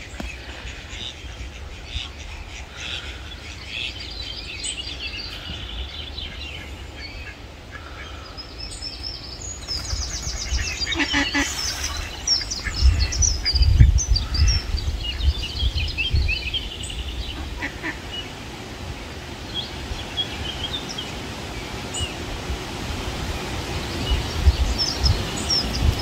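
Mallard ducks quacking, with a short burst of quacks a little before the middle, over small birds chirping throughout. Wind buffets the microphone in low gusts in the middle and again near the end.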